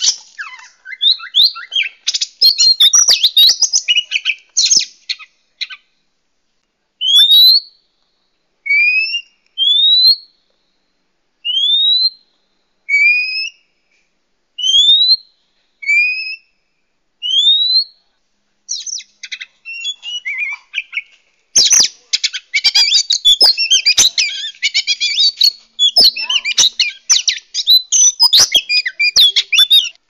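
Oriental magpie-robin song. A burst of fast, varied warbling opens it, then comes a string of clear rising whistles about one a second, alternating between a lower and a higher note, then another long run of fast, varied song. Short silences fall between the phrases.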